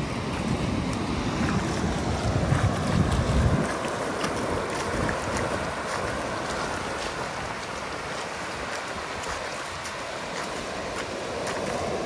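Wind buffeting the microphone over a steady rushing noise, with heavy low gusts in the first three and a half seconds.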